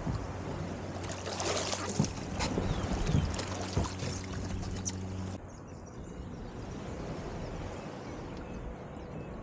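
Water splashing and sloshing around a fishing kayak, with several sharp knocks in the first half. A steady low hum stops abruptly a little past halfway.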